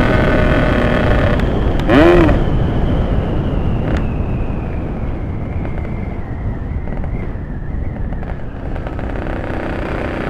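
Ported Yamaha RX-King 135 cc two-stroke single running on the road amid heavy wind rush. It gives a sharp rev blip about two seconds in, then eases off.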